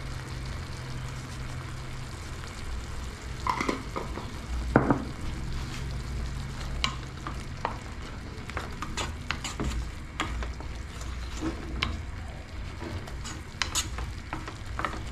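Wooden spoon stirring and scraping thick tomato sauce in a metal pot while the sauce sizzles gently in oil. Irregular knocks and scrapes of the spoon start a few seconds in and come more often in the second half.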